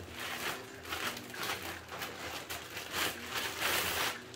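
Plastic packaging rustling and crinkling in repeated bursts as a bagged item is pulled out of its shipping bag, loudest near the end.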